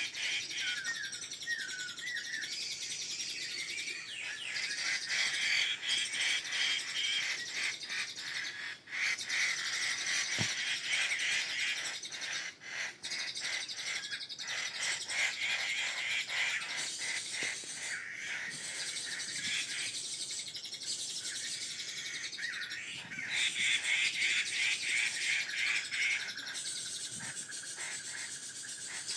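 Birds chirping and calling continuously in dense, rapid runs of high notes, growing louder for a few seconds a little past two-thirds of the way in.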